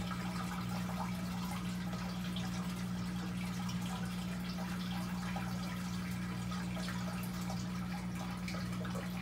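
Steady low hum with faint dripping and trickling water in the background.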